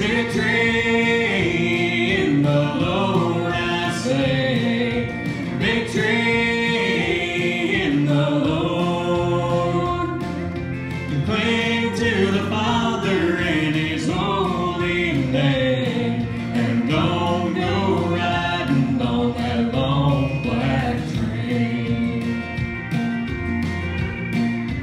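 A man and a boy singing a country gospel song together into microphones over instrumental accompaniment. Near the end the voices stop and the accompaniment plays on.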